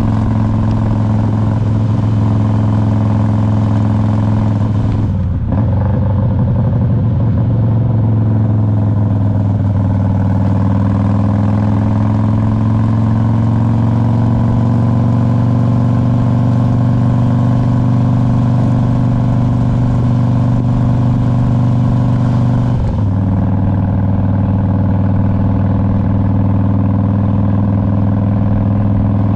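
Harley-Davidson Road King's V-twin engine running on the road. The note breaks briefly about five seconds in, then climbs slowly and steadies. It breaks briefly again about three-quarters of the way through, then runs steadily.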